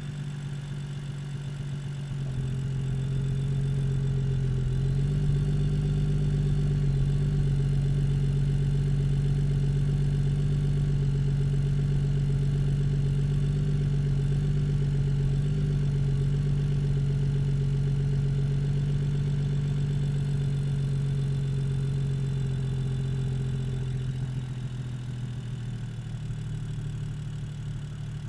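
BMW 435i's N55 turbocharged 3.0-litre inline-six idling steadily with an even, unchanging pitch. It gets a little louder a few seconds in and eases back near the end.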